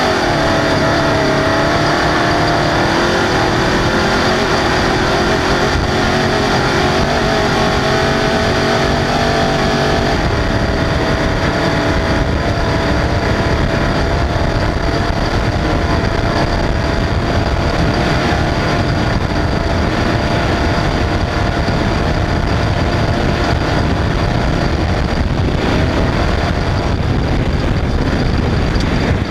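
An off-road race car's engine running hard at racing speed. Its note dips right at the start, climbs over the next several seconds, then holds fairly steady under a dense, rough rumble.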